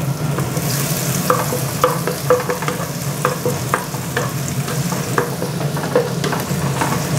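Minced garlic sizzling in hot bacon fat in a non-stick wok, stirred with a wooden spatula in strokes about twice a second. A steady low hum from the kitchen range hood runs underneath.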